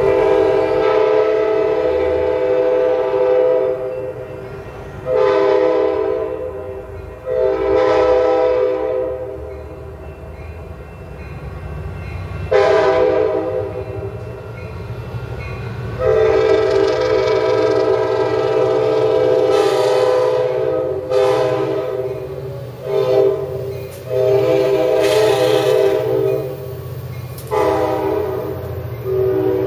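Amtrak passenger train's horn sounding a long series of warning blasts for street running, about nine in all, mostly long with a few short ones, each a steady multi-note chord. Underneath, the train's rumble grows louder as it approaches and draws alongside.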